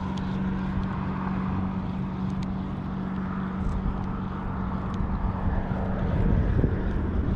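A steady engine hum over low rumbling wind noise, growing louder near the end.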